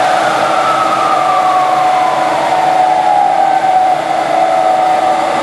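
1959 Voest engine lathe running in high gear, its variable-speed belt drive whirring with a steady whine that slides down in pitch as the drive is shifted to its slow speed setting.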